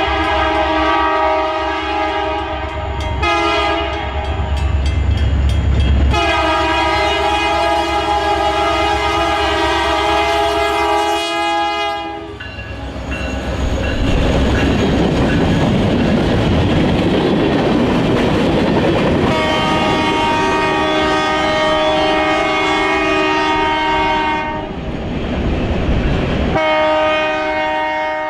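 Diesel locomotive's multi-note air horn sounding several long blasts, with the loud rumble and clickety-clack of the train rolling by on the rails between blasts.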